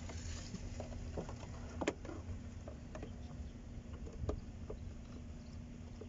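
Scattered small clicks and rustles of a hand rummaging among loose wiring and plastic inside a car's opened dashboard, over a low steady hum.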